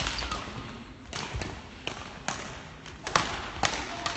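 Badminton rackets striking a shuttlecock during a doubles rally: a run of sharp hits, the loudest at the start and about three seconds in, mixed with thuds of players' shoes on the court floor.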